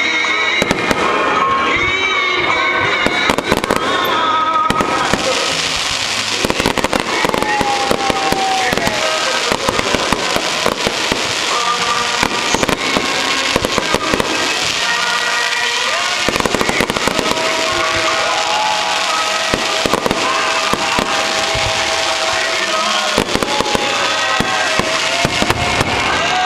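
Aerial fireworks display: a rapid barrage of shell bursts, thickening into dense crackle from about five seconds in, with music playing underneath.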